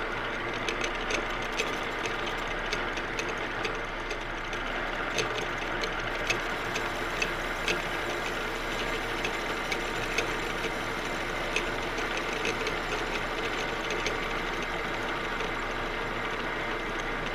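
Metal lathe running steadily with a gear-drive hum while a carbide insert takes a facing cut on hardened steel of about 55–60 Rockwell, with scattered light ticks throughout.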